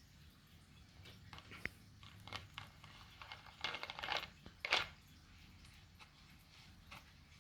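A sleeping dog stirring: a run of short, soft rustles and clicks for about three and a half seconds, loudest near the end of the run, over a faint steady hum.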